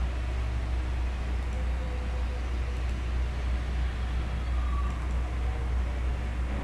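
Steady low hum with a constant haze of background noise, and two faint short tones partway through.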